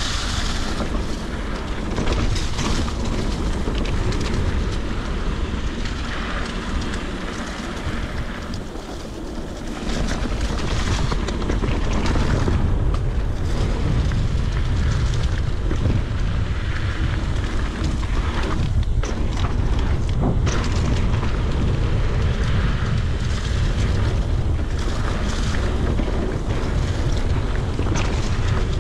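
Wind buffeting a ride camera's microphone over mountain bike tyres rumbling and the bike rattling on a dirt trail. The rush eases about seven seconds in and picks up again about ten seconds in.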